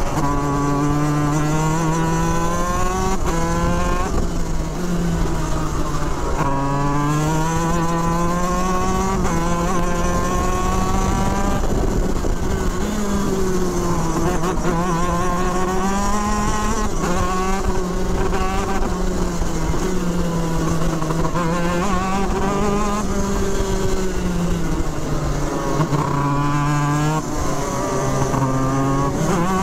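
Racing kart's two-stroke engine heard from on board, pitch climbing as it accelerates down each straight and dropping back into the corners, over and over through a lap.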